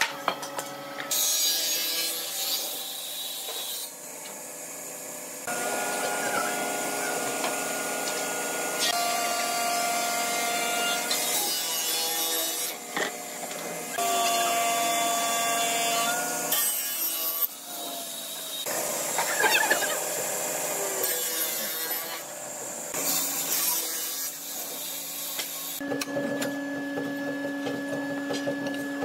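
Woodworking machines running in a string of short workshop clips, each with a steady motor hum and the noise of boards being sawn and handled; the sound changes abruptly every few seconds.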